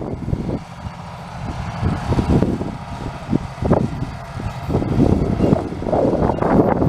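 A heavy vehicle's engine running, with uneven, surging noise.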